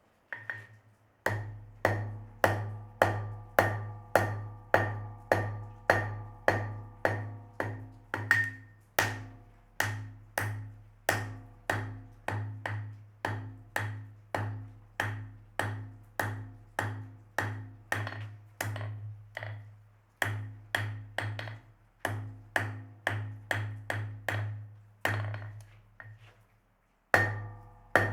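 Forging hammer striking hot steel on an anvil in a steady rhythm, roughly two to three blows a second, each blow leaving a ringing anvil tone. The hammering stops briefly twice, about two-thirds of the way through and again near the end.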